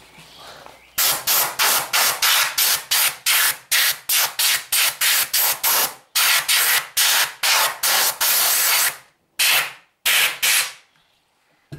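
Compressor-fed wash gun spraying in short, rapid blasts, about two a second, with a couple of longer blasts near the end, blowing petrol through the air filter housing to clear out dust.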